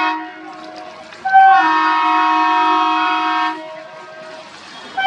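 Diesel locomotive horn sounding in long blasts, several steady tones at once. The tail of one blast cuts off at the start, a full blast of about two seconds begins a second in, and another starts at the very end. Quieter train running noise fills the gaps.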